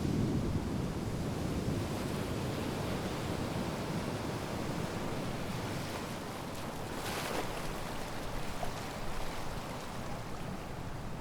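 Sea waves washing onto the shore, a steady rush of surf, with a brief brighter hiss of a breaking wave about seven seconds in.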